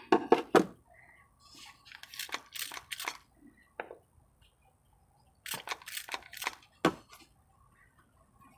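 Crackling and crunching of hands working small succulent cuttings into a bowl of dry potting mix under dry fibrous mulch, in short clusters: a loud burst at the start, more about two to three seconds in, and a louder cluster around six seconds in.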